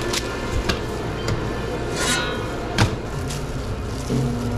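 Food and tray handling at a sandwich-shop counter over a steady equipment hum: a few light clicks, a short paper rustle about two seconds in, and one sharp knock near three seconds. A steady low hum comes in just before the end.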